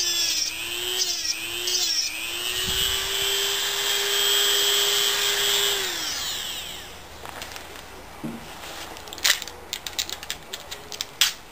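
A high-speed handheld power tool cutting into a lithium polymer pack to split its cells. The motor pitch dips repeatedly as it bites, then holds steady. About six seconds in it winds down, followed by a few sharp clicks and taps near the end.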